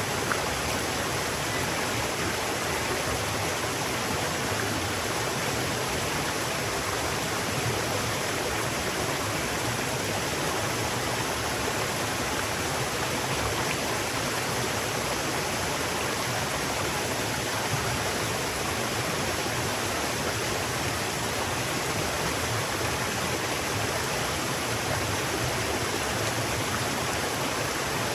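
River water rushing steadily: an even, unbroken wash of noise that does not change.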